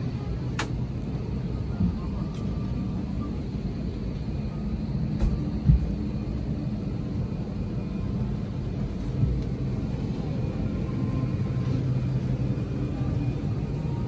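Steady low hum inside a parked airliner's cabin while passengers are getting off, with a few short sharp knocks and a faint murmur of voices.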